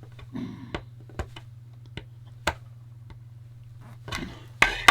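Small sharp clicks and taps of plastic parts being pushed together on a VIC-20's power switch assembly, with a louder snap near the end as a part is forced into place. A steady low hum runs underneath.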